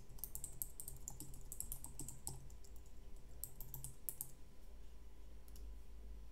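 Typing on a computer keyboard: a quick run of keystrokes, a pause, a second shorter run, then a few single keys near the end.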